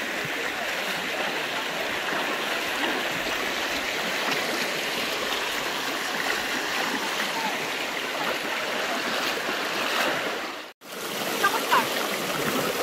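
Fast, muddy hill stream rushing over a shallow rocky bed: a steady rush of water. It cuts out for an instant near the end, then short bits of voices come through over the water.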